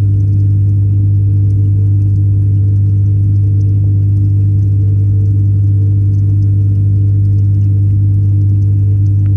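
Steady, loud electric hum of the tank's pump, carried through the water to the submerged camera, with faint scattered ticks above it.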